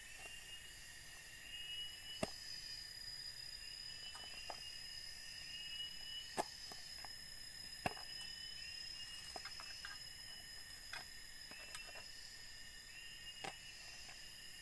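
A few sharp clicks of a small knife striking a plastic food container as chilies and tomato are sliced on it. Behind them, forest insects chirp in a steady repeating pattern over a high continuous drone.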